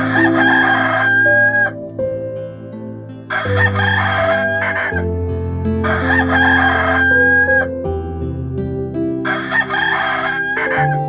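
Rooster crowing four times, about every three seconds, each crow ending in a held high note, over soft background music.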